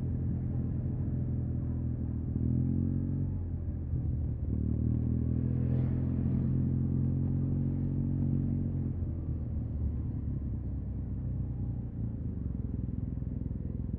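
Yamaha TMAX 560 parallel-twin scooter engine through an Akrapovic carbon full-system exhaust, running at low, fairly even revs in slow traffic. About nine seconds in, the upper part of the note drops away and a lower, steady running note is left.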